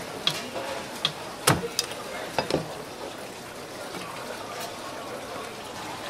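Large kitchen knife chopping through the shell and legs of a steamed red king crab onto a plastic cutting board: a few sharp chops and cracks in the first three seconds, the loudest about a second and a half in, over a steady background hiss.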